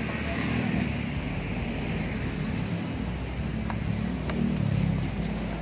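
Steady rumble of motor-vehicle engines in street traffic, with a couple of faint ticks about two-thirds of the way through.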